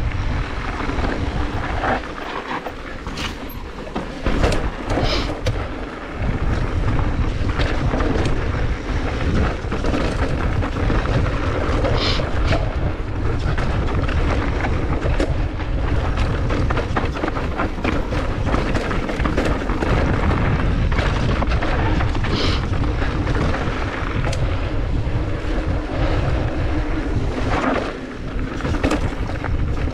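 Mountain bike riding fast down a dusty, stony dirt trail: a steady low rumble of wind buffeting the microphone and tyres rolling over dirt and gravel, with the bike rattling over bumps and a few sharper knocks.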